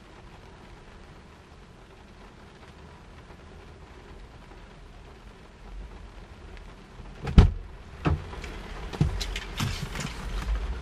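Rain on a parked car heard from inside the cabin as a faint steady hiss. About seven seconds in comes a sharp knock, the loudest sound, then another a moment later and a quick run of clicks and knocks as the noise grows.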